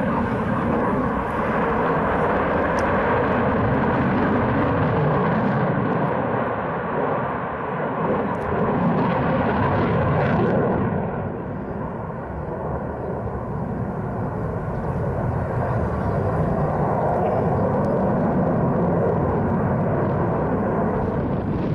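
Eurofighter Typhoon's twin jet engines in flight, a continuous loud rush of jet noise with a faint steady whine in it. It eases off about halfway through, then builds again.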